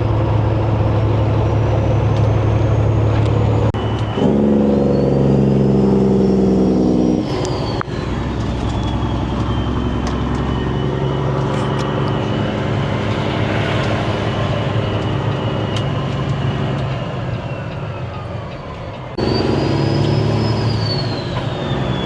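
Semi-truck engine running on the road, in several short stretches cut together, each with a different engine note. A thin high whistle rises and falls over it.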